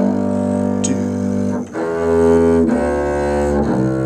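String orchestra playing slow, sustained bowed chords with the low strings prominent, the chord changing about every second.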